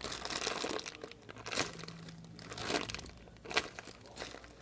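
A foam squishy toy being squeezed and handled, giving irregular crinkling rustles several times over.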